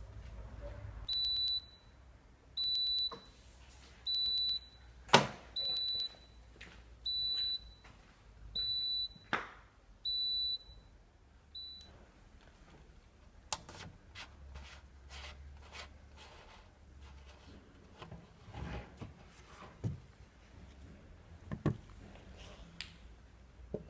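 Whirlpool AWM9000 washing machine's electronic beeper sounding a high beep about every one and a half seconds, eight times: the error alarm that goes with its HF code, a fault in the water supply. A sharp click cuts in among the beeps, and scattered clicks and knocks follow once the beeping stops.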